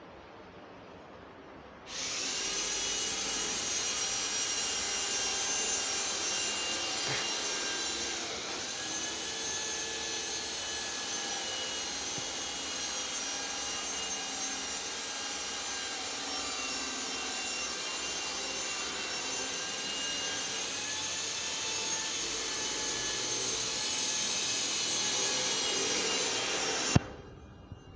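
A machine with an electric motor running steadily with a high whine, switched on suddenly about two seconds in, its pitch dipping briefly about eight seconds in, and cutting off with a click near the end.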